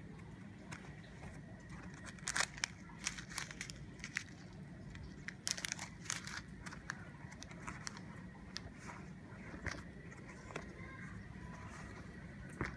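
Handling noise as a smartphone gimbal is worked out of its foam-lined zippered hard case: scattered light clicks and rustles, in little clusters about two and a half seconds in and again around six seconds, over faint steady background noise.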